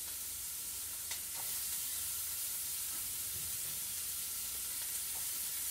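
Asparagus, mushrooms and onion frying in butter in a skillet, a steady sizzle, with a faint tick about a second in.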